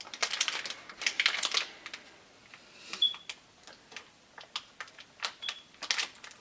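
Small cardboard mystery boxes and their plastic-wrapped toys being handled and opened: crinkling in short clusters about a second in and near the end, with scattered light clicks and taps.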